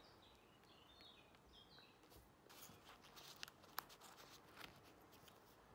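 Near silence, with faint short high chirps in the first second and a half and a few soft clicks a little past halfway.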